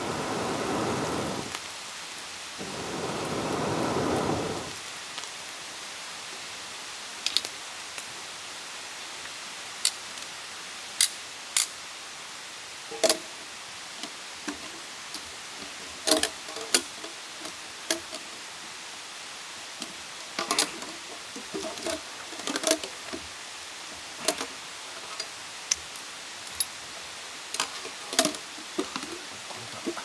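Two long breaths blown through a metal fire-blowing pipe into a campfire, the first ending about two seconds in and the second running from about three to five seconds. After that the wood fire crackles, with a steady hiss and scattered sharp pops and snaps.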